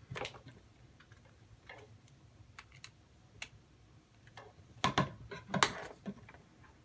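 Scattered clicks and taps of small plastic electronics being handled and plugged in, with a louder cluster of clicks about five seconds in.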